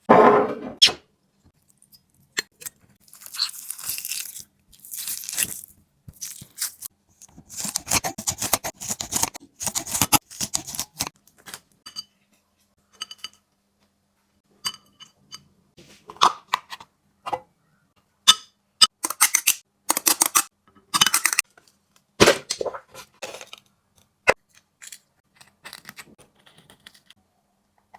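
Border collie chewing and crunching its food close to the microphone, in irregular bursts of crunches and sharp clicks with short pauses between.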